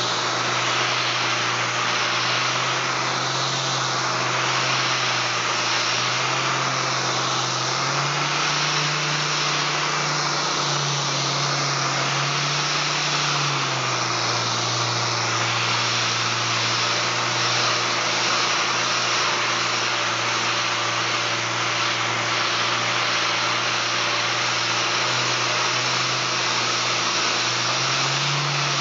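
3M 6-inch random orbital air sander running on a solid surface countertop, with its dust-extraction hose attached. It gives a steady hiss and whine, and its low hum steps up and down in pitch a few times.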